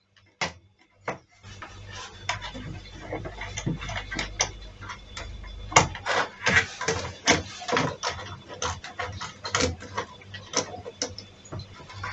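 Hands working a plastic electrical enclosure and its wiring close to the microphone: many irregular plastic clicks and knocks over a constant rustle of handling.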